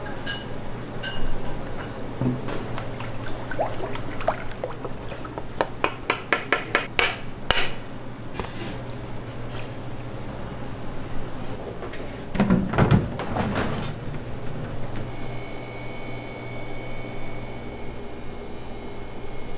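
Kitchen work clatter: scattered knocks, then a quick run of knocks at about five a second, over a steady low machine hum. A louder clatter comes about two-thirds of the way in. Near the end a steady high tone sets in.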